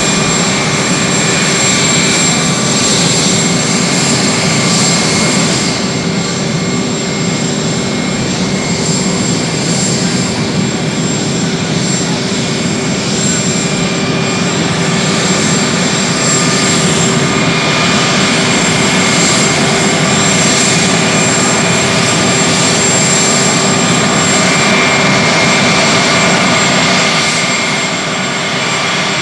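Four Pratt & Whitney TF33 (JT3D) turbofans of a Boeing 707-based VC-137C running at low power while the jet taxis. The sound is a steady rumble with a high, multi-tone whine on top, and it eases slightly near the end.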